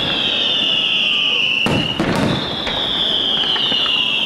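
Aerial fireworks display: a high-pitched whistle that slowly falls in pitch runs through, broken by two sharp bangs close together about halfway, and lighter cracks near the end.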